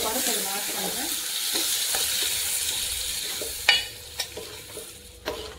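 An onion-tomato tempering sizzling in hot oil in a clay pot while a spoon stirs it. About two-thirds in comes a sharp clink, then a couple of lighter knocks, and the sizzle dies down as the cooked dal is poured in from the pressure cooker.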